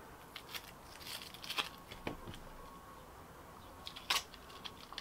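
Dry onion skin crackling as it is peeled off by hand, a few scattered crinkly crackles with the sharpest about four seconds in.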